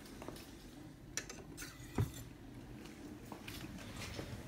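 A few scattered clicks and knocks of handling and movement in a kitchen, with one louder thump about two seconds in.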